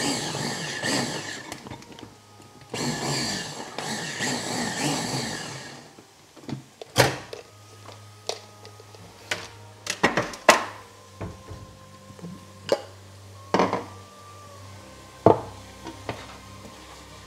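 Blender run in two short pulses, the first about two seconds and the second about three, followed by several sharp knocks and clatter of kitchen things.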